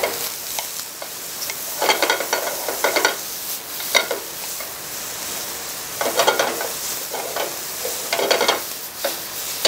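Thick-sliced onions sizzling in oil in a hot frying pan, stirred and scraped around with a wooden spatula in several short bouts over a steady sizzle.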